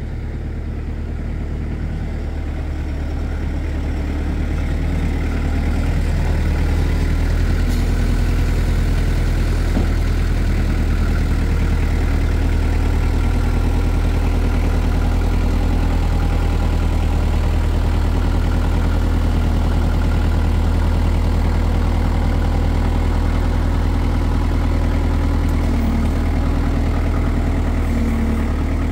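Kubota L48 tractor's diesel engine running steadily at low revs, growing louder over the first several seconds as the tractor draws near, then holding an even hum.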